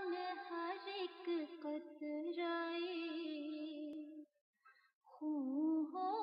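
A solo voice singing unaccompanied, holding long, wavering notes, with a short break about four seconds in.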